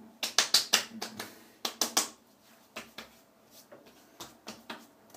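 Hands patting and slapping aftershave onto the face and neck: a quick run of sharp slaps in the first two seconds, then lighter, scattered pats.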